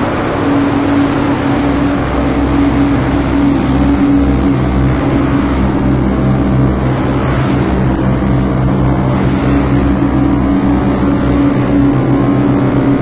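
Live electronic noise music: a loud, dense low drone of steady pitched tones that flutter rapidly, under a wash of hiss.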